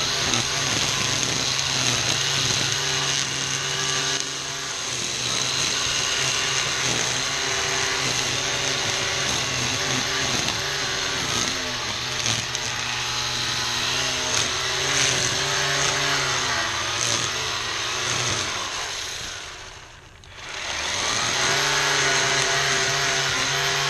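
ECHO 58-volt battery string trimmer running hard as its line cuts through tall weeds and grass, the motor pitch sagging and recovering under load. About 19 seconds in the trigger is released and the motor spins down almost to a stop, then it is squeezed again and the trimmer winds back up to full speed.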